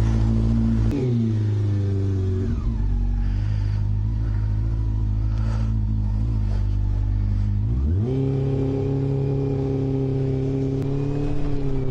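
Honda CB400 Super Four's inline-four engine running steadily. Its pitch drops about a second in, then rises about eight seconds in and holds at a higher steady note.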